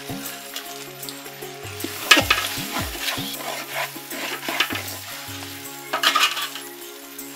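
Spatula stirring and scraping raw rice through a hot, oily spiced chicken masala in a large metal pot, with a frying sizzle underneath. The loudest scrapes come about two seconds in and again about six seconds in.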